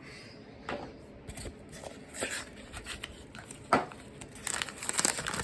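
A pocket knife blade cutting open packaging, with scattered clicks, scraping and crinkling; a sharp click comes a little under four seconds in and the rustling grows busier near the end.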